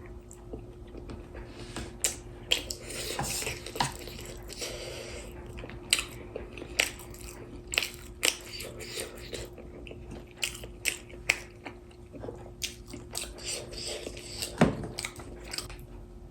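Close-up eating sounds of a person chewing and biting fresh kimchi and noodles: wet smacks and sharp clicks at an uneven pace, over a faint steady hum.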